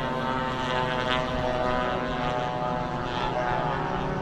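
Several radio-controlled model warbird planes' engines and propellers running together in the air, a steady layered drone of more than one engine at slightly different pitches.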